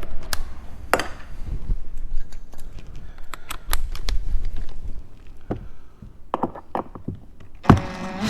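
Small, scattered clicks, taps and knocks of hand tools working a small screw in a car's interior door panel, with a louder knock near the end.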